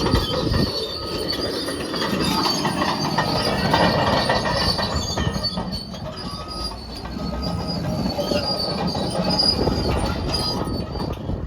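Caterpillar D6N LGP crawler dozer working under power, its steel tracks squealing and clanking over the steady rumble of the engine.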